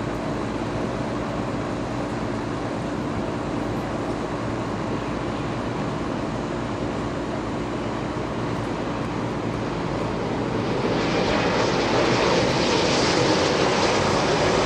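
Jet aircraft engines, a steady rumble with a faint hum, growing louder with much more hiss about eleven seconds in.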